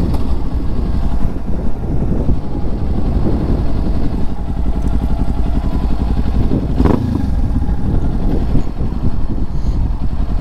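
Motorcycle engine running steadily at low revs as the bike rolls slowly in traffic, heard from the rider's position, with a brief louder moment about seven seconds in.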